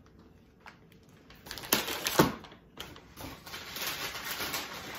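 Plastic grocery packaging and a reusable shopping bag rustling and crinkling as groceries are handled, with two louder bursts about two seconds in.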